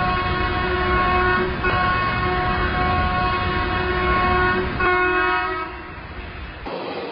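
Train horn sounding in three blasts: one already going that breaks off about a second and a half in, a longer one after it, and a short one that ends about three-quarters of the way through. A low rumble runs underneath.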